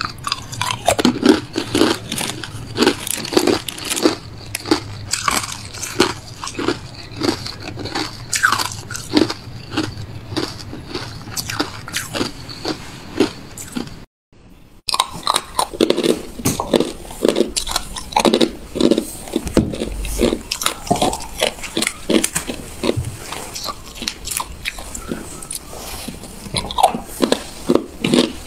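Hard clear ice being bitten and chewed close to the microphone: sharp crunches follow one another about two a second. A brief silence about halfway through, then the crunching resumes.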